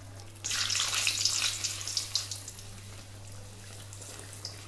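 A second chicken kachori going into hot oil in an iron karahi: a sudden loud sizzle about half a second in, easing after a couple of seconds into softer bubbling, over a steady low hum.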